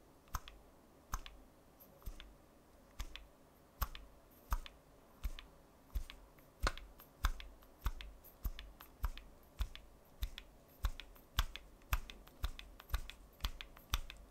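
Daiwa Alphas SV TW baitcasting reel's SV inductor brake clicking as the spool is spun with the brake set to maximum: each sharp click is the inductor being pulled back by its spring. The clicks come about one a second at first and quicken to two or three a second near the end.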